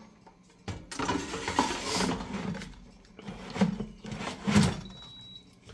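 Kumtel digital air fryer basket full of frozen fries being handled and slid back into the fryer: the fries rustle in the basket, then two knocks as the drawer clunks into place. A faint, short, high beep comes near the end.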